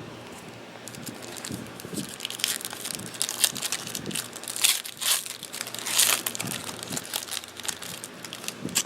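Crinkling and tearing of a trading-card pack's plastic wrapper, a dense run of irregular crackles as the pack is torn open and handled.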